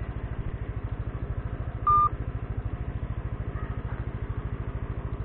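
Yamaha scooter engine idling with a steady, even pulse, and a single short electronic beep about two seconds in.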